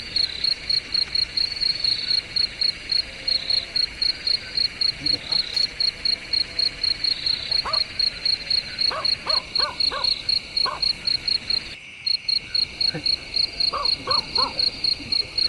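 Night insects chirping: a high, rhythmic chirp pulsing about four times a second over a steady high drone. From about halfway in, groups of short calls, which the tagger takes for dogs barking, join in.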